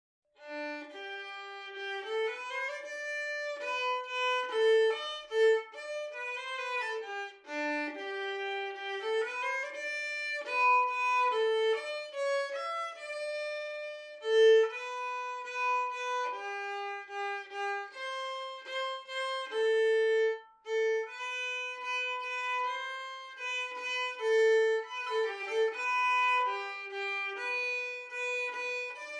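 Background music: a solo violin playing a melody without accompaniment.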